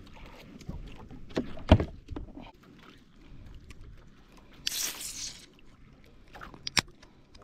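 Sharp knocks on a small fishing boat over its steady background noise. The loudest knock comes a little under two seconds in, another near the end, and a short hissing rush about five seconds in.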